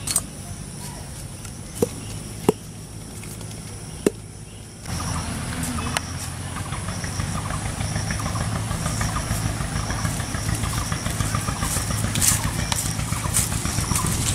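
A large knife striking a coconut: three sharp knocks in the first few seconds. About five seconds in, a steady, louder outdoor rumble with a low hum takes over.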